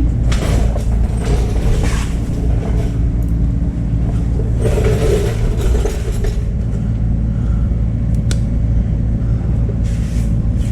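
Steady, loud low rumble of running machinery, with a few brief clatters.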